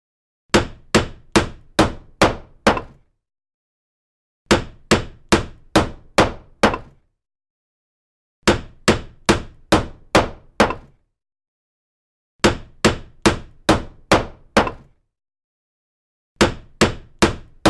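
Hammer blows in sets of five, about two a second, each set cut off by a gap of dead silence before the next set begins, repeating every four seconds or so like a looped sound effect.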